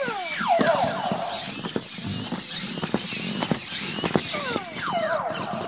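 Several WowWee Robopet toy robot dogs walking on a hard floor: their plastic feet click and tap, and their geared motors whir. Several falling whining tones sound, early on and again about four seconds in.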